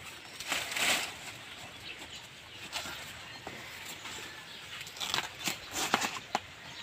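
Dry, dead banana leaves rustling and crackling as they are pulled and torn from the base of a banana plant: one rough swish about half a second in, then a quick run of crackles and snaps near the end.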